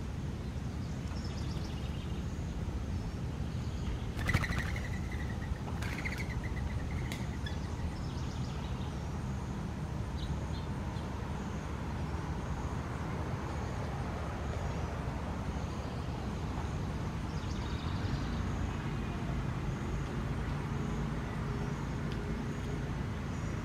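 Steady low outdoor rumble of distant road traffic, with two short, sharp bird chirps about four and six seconds in.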